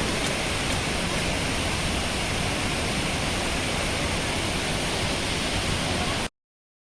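Waterfall rushing, a steady even roar of falling water that cuts off suddenly about six seconds in.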